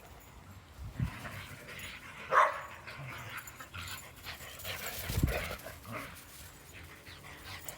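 Dogs playing outdoors, with one loud short bark about two and a half seconds in. Two low thumps come about a second in and about five seconds in.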